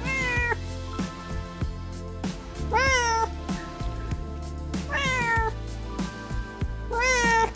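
Domestic cat meowing four times, about two seconds apart, each call rising and then falling in pitch, over background music.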